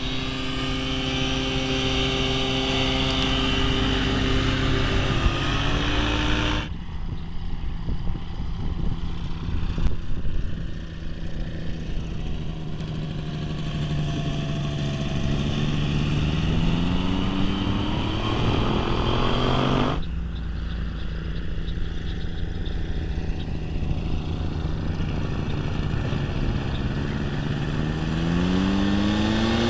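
Quicksilver MX ultralight's two-stroke engine and propeller running as the floatplane skims across the water, its pitch climbing steadily as the throttle is opened, notably about two-thirds of the way through and again near the end. The sound jumps abruptly twice where separate clips are joined.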